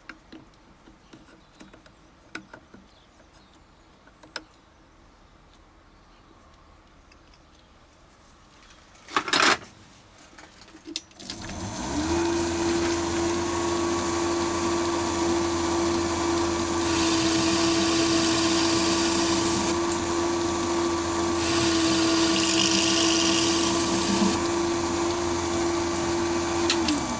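Chinese mini lathe starting up about eleven seconds in and running steadily with a low hum and a high whine, turning a metal backplate, with two stretches of cutting hiss as the tool takes a cut; it spins down near the end. Before it starts there are a few light clicks of hand setup and one loud clunk.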